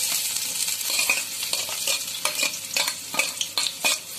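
Chopped onions sizzling in hot oil in a nonstick pan, with a steel slotted spoon scraping and tapping against the pan as it stirs them.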